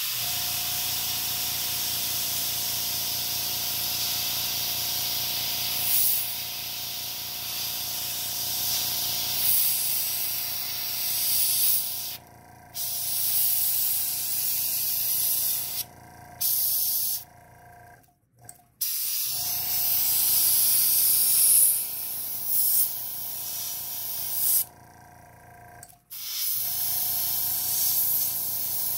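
Airbrush spraying paint in long hissing passes, stopping briefly about four times as the trigger is let off and then resuming. Under it runs the steady hum of the small air compressor feeding the airbrush.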